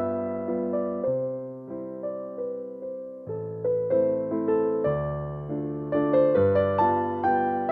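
Background piano music, soft electric-piano chords and single notes at a calm, unhurried pace.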